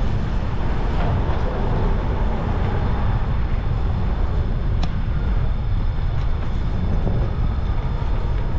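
Wind rumbling steadily on the microphone of a camera on a moving bicycle, a loud low buffeting noise.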